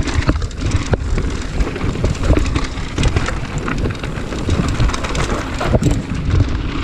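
Mountain bike running fast down a rough dirt and gravel trail: tyres crunching over loose stones and ruts, the bike rattling with a constant patter of small clicks and knocks, over a heavy low rumble of wind on the chest-mounted camera's microphone.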